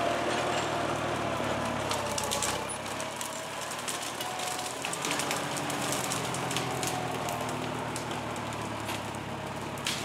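A 1951 International Harvester McCormick W-4 tractor's four-cylinder gasoline engine running at low speed as it drives over brush, with sharp cracks of twigs and branches snapping under the tyres. It grows slightly fainter as the tractor pulls away.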